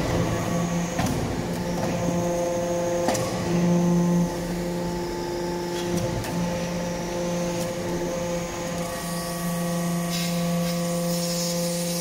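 Hydraulic metal-chip briquetting press running: its hydraulic pump unit gives a steady hum, with a few sharp clicks along the way.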